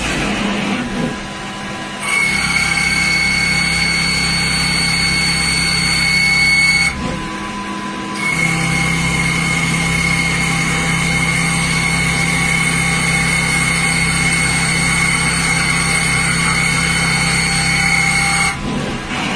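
CNC machine running, a steady high-pitched whine over a low hum, stopping briefly about seven seconds in and again near the end.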